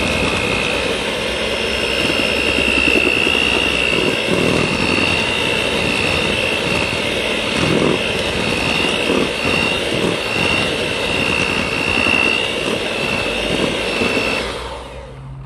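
Electric mixer beating egg yolks and sugar in a stainless steel bowl: a loud, steady motor run with a constant high whine, cutting off near the end.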